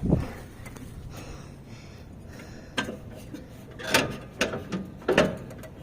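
Irregular metallic clanks and knocks from hand work on a riding mower's deck: tools, brace and belt parts being handled and struck, a handful of separate knocks over a low background.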